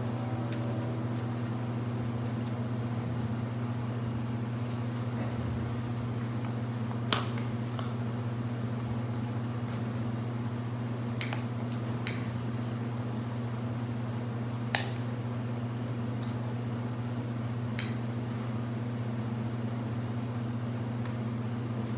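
Steady low hum with a handful of sharp clicks scattered through it; the loudest clicks come about seven and fifteen seconds in.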